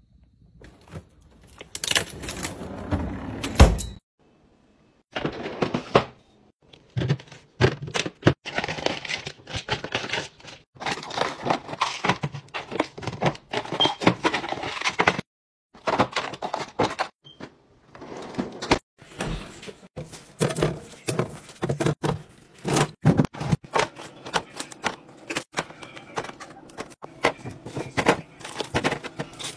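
Snacks and drinks being restocked into fridge drawers and clear plastic bins: a quick, irregular run of clicks, taps and knocks as plastic cups, bottles and packets are set down and slid into place, with two short breaks.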